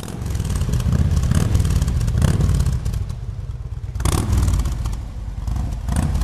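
A loud, rumbling engine with a rattling clatter, swelling about two and four seconds in.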